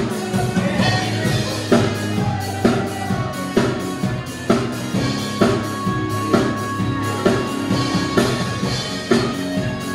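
Music with a steady drum beat, a strong hit a little under once a second, with held notes over it.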